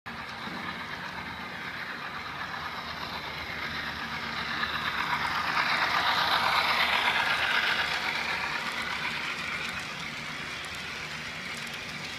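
HO scale model container and trailer-on-flatcar train running past, led by two diesel locomotives. It grows louder as the locomotives pass close, about six seconds in, then eases off as the container and trailer cars roll by.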